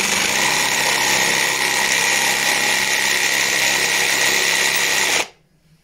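Cordless Einhell jigsaw running at slow speed in its exact (non-pendulum) mode, its blade steadily sawing through a softwood board. It is switched off mid-cut about five seconds in and stops suddenly.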